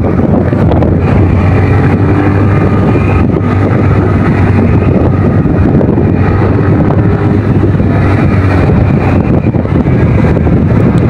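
Motorcycle riding at road speed: wind rushing over the microphone, with the engine running steadily underneath.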